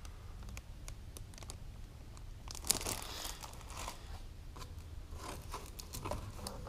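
Clear plastic bags around a plastic model kit's parts sprues crinkling and rustling as they are handled, with scattered light clicks and taps; a louder stretch of crinkling about three seconds in.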